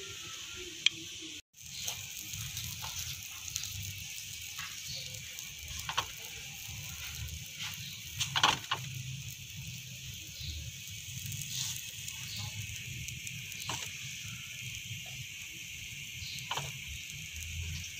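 Steady hiss and low rumble of cooking on a hot iron tawa over a gas burner, with scattered light clicks and taps of a spoon and fingers on the pan. The sound drops out for a moment about a second and a half in.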